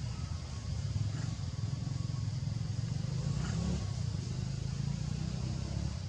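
Steady low outdoor rumble, even throughout, with a faint high hiss above it.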